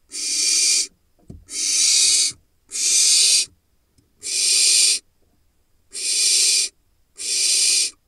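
Barn owl nestling giving its harsh, hissing begging screech, the food-begging call often called "snoring", six times, each call just under a second long, at about one a second.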